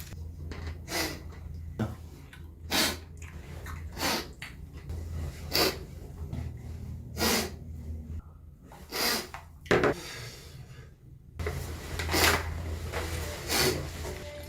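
A young man sniffling over and over: about a dozen short, noisy sniffs, one every second or so, with one sharper, louder one a little past the middle.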